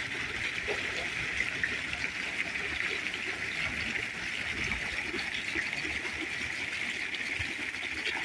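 Fountain water jets splashing steadily into a basin.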